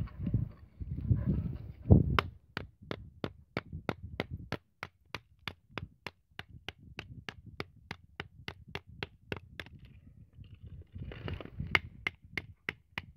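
A folding pocket knife being batoned through a piece of hard, dry wood: dull thuds of the baton striking the blade's spine in the first two seconds, the hardest about two seconds in, and another bout of blows near the end. A steady, fast ticking of about four clicks a second runs underneath throughout.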